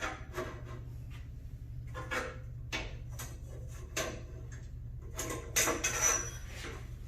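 A steel bandsaw blade being fed by hand through the saw's table slot: irregular scrapes, clicks and metallic rattles, the busiest stretch about five seconds in, over a steady low hum.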